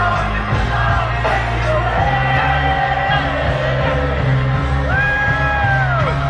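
Loud live rap-rock concert music in a large hall: a steady bass line under sung and shouted vocals, with a long held note about five seconds in that bends down at its end.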